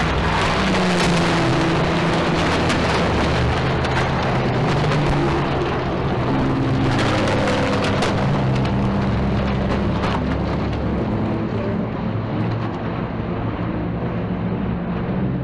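GT race car engines running as cars pass the crash scene, their pitch shifting, under a steady noisy rush with scattered sharp clicks.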